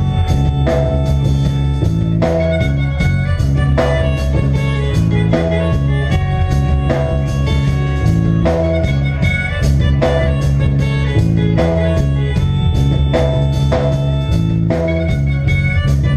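Live reggae band playing an instrumental passage: electric guitar and drum kit over a steady bass line, with a regular beat.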